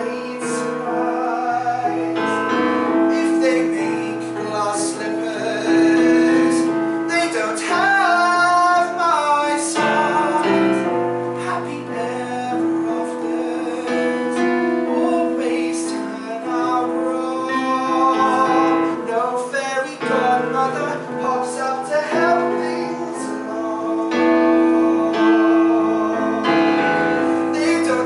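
A song sung by voices with live accompaniment on a stage keyboard playing piano.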